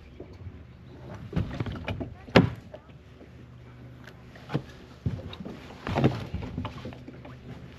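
Fishing kayak being paddled: water sloshing, with several hollow knocks and thunks on the hull a second or two apart, the loudest about two and a half seconds in.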